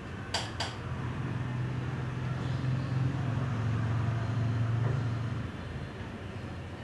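Two quick clicks near the start, then a low, engine-like rumble that swells over a few seconds and fades about five and a half seconds in.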